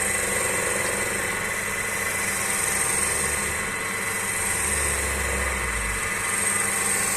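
Wood lathe running steadily while a spanner is held against the spinning log, scraping off shavings; the cutting noise swells and fades, with a deeper rumble a little past the middle.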